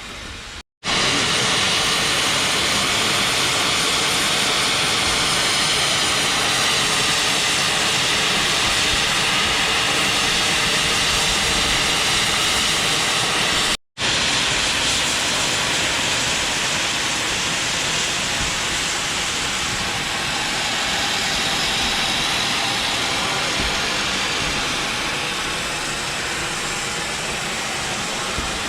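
Steady loud rushing of a steam train running on the line, wheels on the rails and wind, heard from aboard. It cuts out for an instant twice, near the start and about halfway through.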